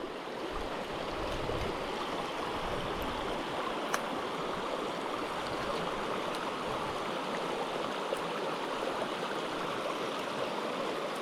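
Steady rush of river water flowing, with a faint click about four seconds in.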